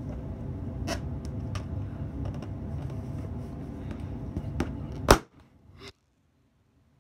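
Hands handling a large latex balloon, with a low rubbing rumble and a few small clicks, then one loud sharp bang about five seconds in as the balloon pops.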